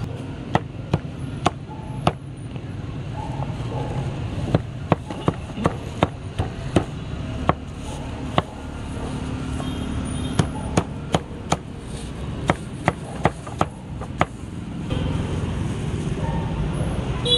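Meat cleaver chopping roast pork on a thick round wooden chopping block: sharp chops in quick runs of several strokes with short pauses between them, over steady street traffic.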